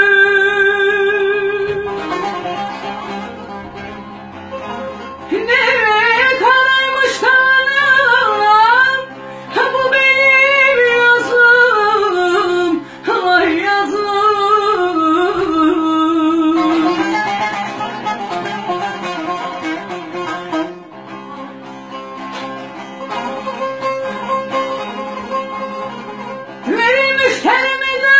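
A woman singing a Turkish folk song (türkü) with vibrato and ornamented runs, accompanied by a bağlama (long-necked saz). Her voice drops out for a few seconds early on and for about ten seconds in the second half, leaving the saz playing alone, and comes back in near the end.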